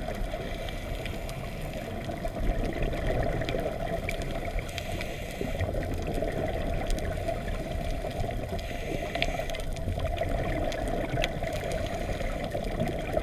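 Underwater ambience heard through a GoPro Hero4 Silver's waterproof housing: a steady, muffled low rush of noise with scattered faint clicks.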